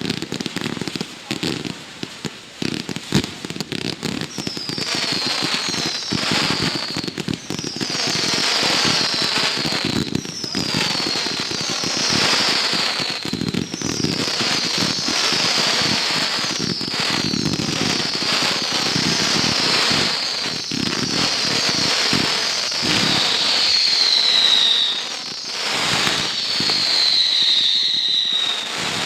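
Consumer fireworks going off in a dense run of bangs and crackling. From about four seconds in, whistles join, each falling in pitch, about one a second.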